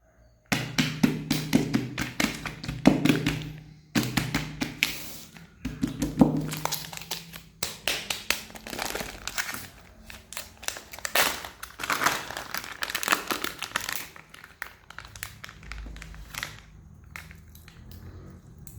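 Music with dense crinkling, tapping and clicking handling sounds, the pitched music loudest in the first seven seconds and the crinkling dying down near the end.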